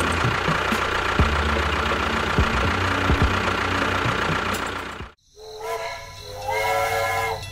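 Tractor engine running steadily with a low chug and scattered knocks, cut off abruptly about five seconds in. After a short gap, a few held whistle-like notes sound, stepping in pitch.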